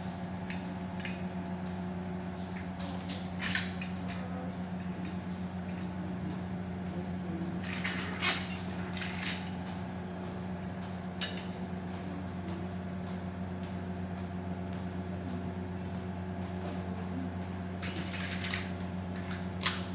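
A steady low machine hum, with a few scattered light clicks and knocks.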